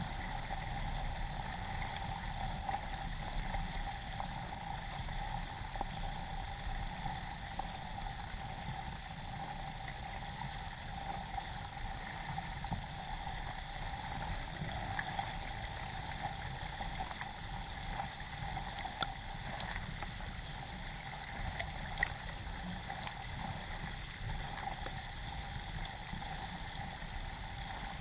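Steady rush of river water along the hull of an Epic Legacy XL K1 racing kayak under way, with paddle blades splashing, picked up close by a camera mounted on the kayak's deck. Two sharp knocks stand out about three seconds apart in the second half.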